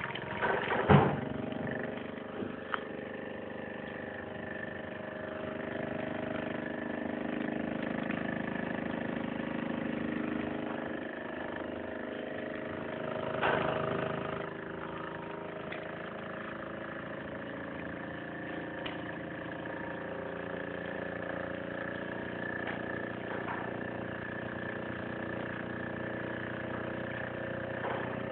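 Mamod Minor 2 toy steam engine running steadily under steam, its single oscillating cylinder driving the flywheel with a continuous whirring chuff and hiss. A sharp knock about a second in is the loudest sound, and a brief louder rush comes about halfway.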